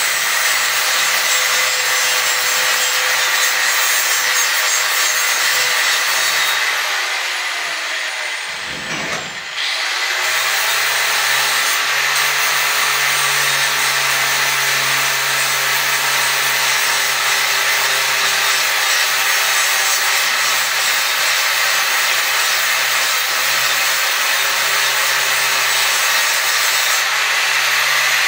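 Angle grinder grinding rust off steel pipe, a steady high-pitched abrasive whine. About eight seconds in it eases off and its pitch drops, then it picks back up and grinds on.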